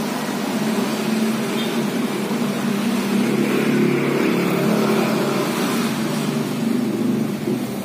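A motor engine running steadily, growing louder through the middle and easing back near the end.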